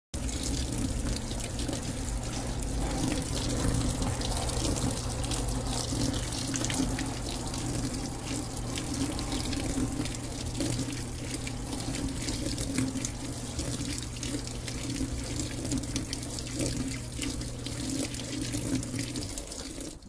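Brastemp Vantage high-efficiency top-load washer filling with water: a steady rush of water pouring into the drum. A low steady hum runs underneath and stops shortly before the end.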